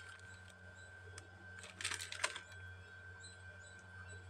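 Faint chewing of a mouthful of soft cup cake, a few quiet, moist clicks, over a steady low hum.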